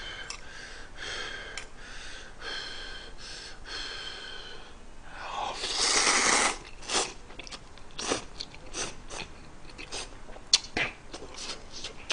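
A person slurping ramen noodles from a spicy stew in one long, loud slurp about halfway through, then chewing with wet smacks and clicks.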